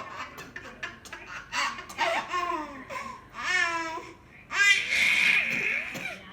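Baby laughing in several separate bursts of high-pitched laughter, the longest and loudest near the end.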